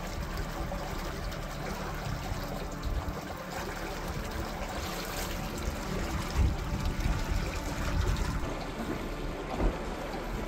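Water lapping and trickling against a boat's hull, with a few low bumps from the water.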